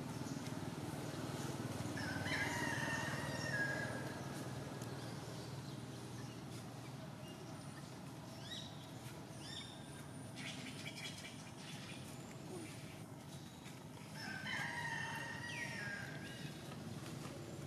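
Two long pitched animal calls, one about two seconds in and one near the end, each lasting about two seconds, over a steady low hum.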